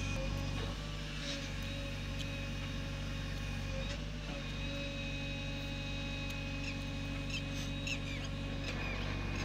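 JCB 3DX backhoe loader's diesel engine running steadily under load while the backhoe arm dumps soil and digs, with a steady high whine over the engine drone.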